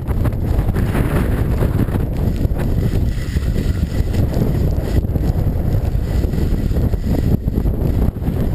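Wind buffeting a head-mounted camera's microphone as a skier runs downhill, with skis hissing over the snow beneath.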